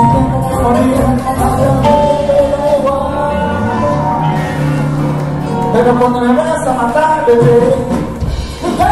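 Music with a voice singing over instruments.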